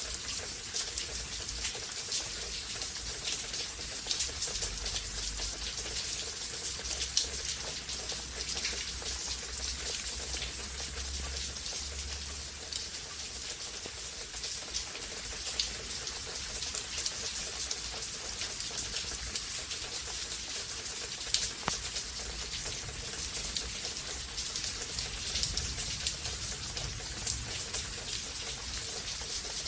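Steady rain falling, with a constant hiss and many close, separate drops ticking on surfaces.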